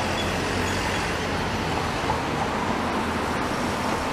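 Steady city street traffic noise from road vehicles and streetcars, an even rumble with no distinct events.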